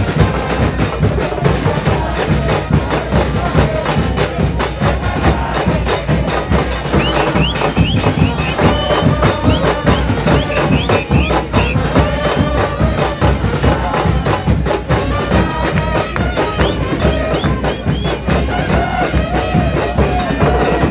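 A football supporters' band playing in the stands: drums struck in a fast, steady beat with a melody carried over it.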